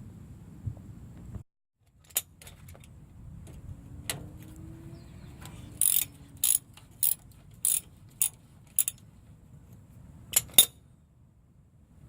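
Hand ratchet wrench clicking in short strokes, about five quick bursts in a row, then two close together near the end, over a low steady background hum.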